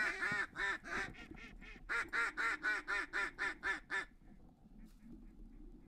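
Duck quacking in two rapid runs: the first fades off over about a second and a half, the second is about ten evenly spaced quacks that stop about four seconds in.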